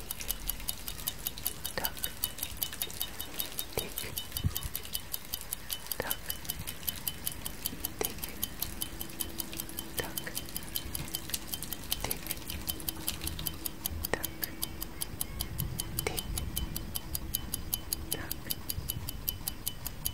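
Clock tick-tock sound effect: quick, even ticks several times a second, with a stronger tick about every two seconds.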